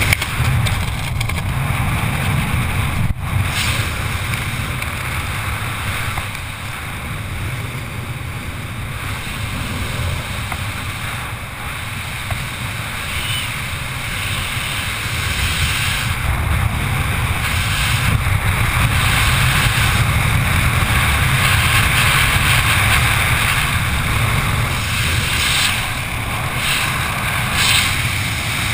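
Wind rushing over the microphone of a skydiver's camera during flight under an open parachute canopy: a steady, low buffeting noise that grows somewhat louder in the second half.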